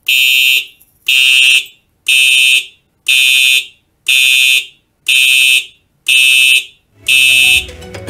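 Fire alarm horn sounding eight even, shrill blasts, about one a second. End-card music starts under the last blast.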